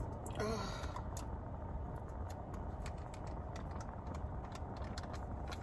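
Scattered small clicks of food packaging and a sauce container being handled, over a steady low rumble like a car's engine running. A brief hummed voice sound comes about half a second in.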